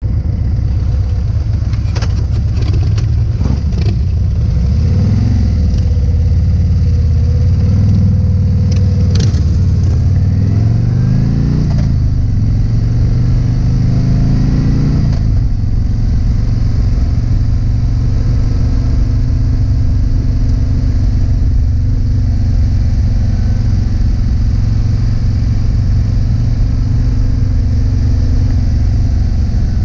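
Harley-Davidson CVO ST motorcycle's V-twin engine under way: its note climbs and drops back several times in the first half as it pulls up through the gears, then holds steady at cruising speed. A few sharp clicks come in the first few seconds and again about nine seconds in.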